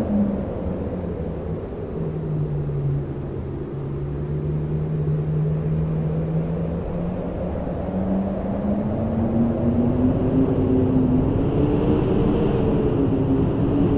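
Howling wind: a low rumble carrying a moaning tone that sinks in pitch over the first few seconds, then rises again from about eight seconds in as the gusts grow slightly louder.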